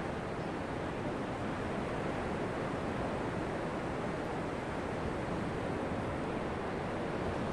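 Ocean surf breaking on a sandy beach: a steady rushing noise.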